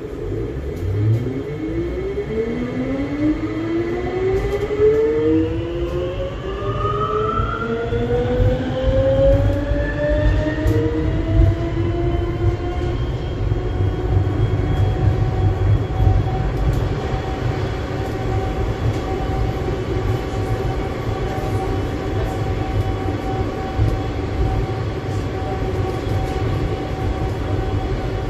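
Lille VAL driverless rubber-tyred metro train pulling away: its electric traction drive gives a whine of several tones that rise in pitch for about twelve seconds as it accelerates. The whine then holds steady at cruising speed over a constant low rumble from the running gear.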